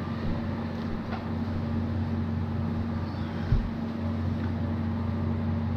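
Steady low background hum with a couple of faint knocks, about a second in and again past the middle.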